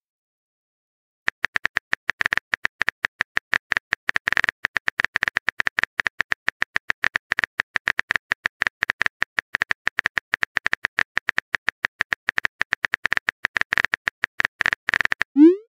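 Rapid keyboard tap clicks of a texting app's typing sound effect, many a second, starting about a second in as a message is typed out. Near the end a short rising tone sounds as the message is sent.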